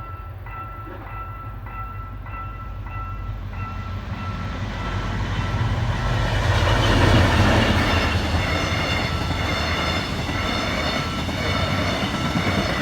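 Level-crossing alarm bell ringing in even strokes about twice a second, then a train passing through the crossing, its noise building to its loudest about seven seconds in.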